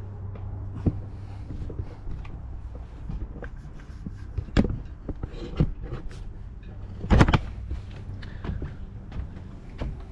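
Footsteps and knocks of a person climbing a boat's swim ladder and stepping onto the deck: irregular clunks and taps, the loudest cluster about seven seconds in, over a low steady hum.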